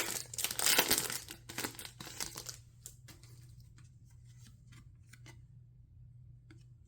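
Foil Pokémon booster pack wrapper crinkling and tearing open for about the first two and a half seconds, then only faint scattered ticks as the pack and cards are handled.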